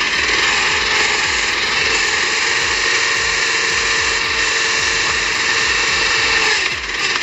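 Heavy wood-processing machine running: a loud, steady mechanical noise with a regular low pulse, briefly dropping and changing character near the end.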